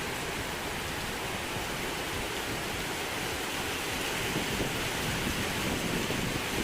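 Heavy rain falling steadily, growing slightly louder about four seconds in.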